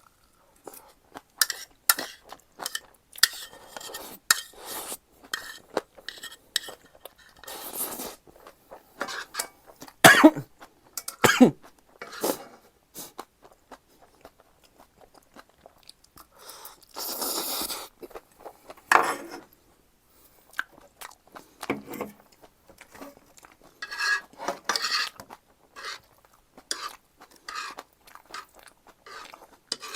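Close-miked eating sounds: utensils clicking and knocking against a dish, with chewing of noodles and green-onion kimchi. The loudest knocks come around ten and eleven seconds in.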